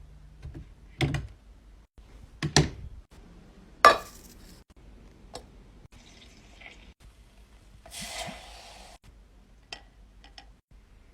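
Kitchen handling sounds: a series of sharp knocks and clatters, the loudest about four seconds in, and a brief rush like water pouring or running for about a second near eight seconds in.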